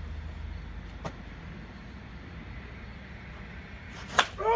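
A slow-pitch softball bat strikes the ball with one sharp crack about four seconds in, and a man's shout follows at once, falling in pitch. A steady low hum lies underneath.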